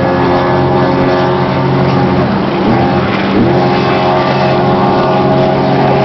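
Cigarette boat's engines running hard at speed, a steady loud drone. The engine note dips briefly about halfway through, then climbs back.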